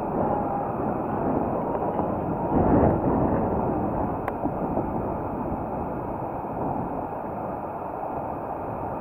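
Steady wind and rolling noise of a bicycle being ridden along a paved cycle path, with a louder swell about two and a half seconds in and a single short click a little after four seconds.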